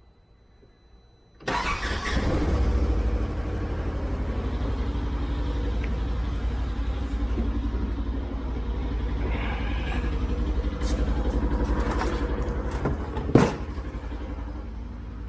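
An engine starts up suddenly about a second and a half in and keeps running steadily with a fast, even pulse; a single sharp knock sounds near the end.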